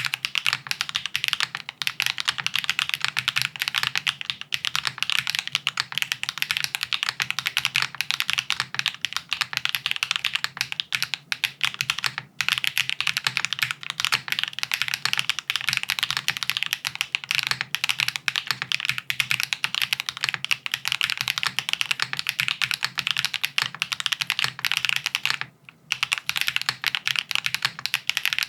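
Haven65 XT mechanical keyboard (aluminium plate, gasket mount, no foam, PBT keycaps) being typed on quickly and continuously, a dense run of key clacks. It pauses briefly about twelve seconds in and again for about a second near the end.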